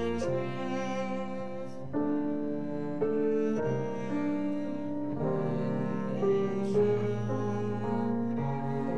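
Instrumental hymn accompaniment with no singing: slow, sustained chords that change about every second.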